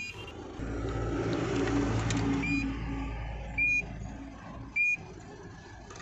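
A vehicle dashboard warning chime beeps three times, about a second apart, with the ignition on and the diesel engine stopped. Under the chimes a low steady hum fades away about four and a half seconds in.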